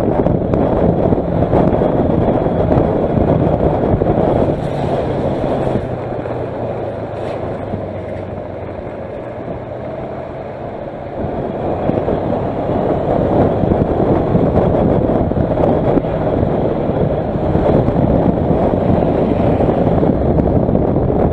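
Onboard riding noise of a Kawasaki Versys motorcycle at road speed: wind rush over the camera microphone with the engine and tyre noise underneath. It drops quieter for a few seconds in the middle, then comes back up.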